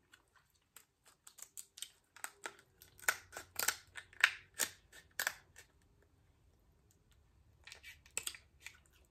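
Scissors snipping through the spiny shell of a king crab leg: a quick run of sharp snips and cracks, then a pause, then a few more snips near the end.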